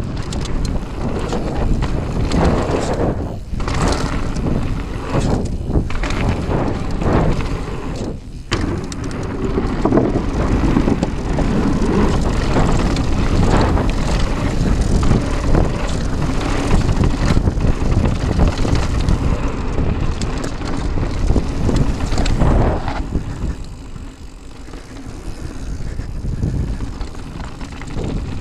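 Mountain bike rolling fast downhill over a loose gravel and dirt trail: steady tyre rumble and chatter from the bike, with wind buffeting the helmet-mounted camera microphone. It eases for a few seconds near the end, then picks up again.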